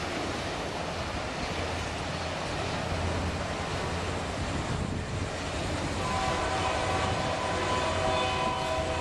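Empty autorack railcars rolling past, a steady rumble and hiss of wheels on the rails. About six seconds in, a steady high tone of several notes together joins the rolling noise.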